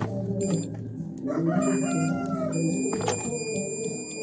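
Digital multimeter's continuity-test buzzer beeping with a steady high tone, briefly at the start and again from about a second and a half in until near the end, the sign that the test probes are touching and the circuit is closed. A lower, wavering call sounds in the background around the middle.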